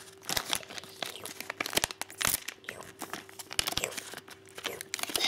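A plastic Lego minifigure blind bag being crinkled and torn open by hand, with irregular crackles and rustling.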